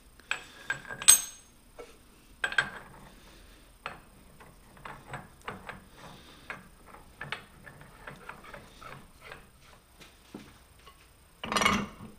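Metal clinking and rattling as a steel nut and washer are handled and threaded on a lathe mandrel by hand, with a sharp click about a second in. A louder ringing metal clank comes near the end.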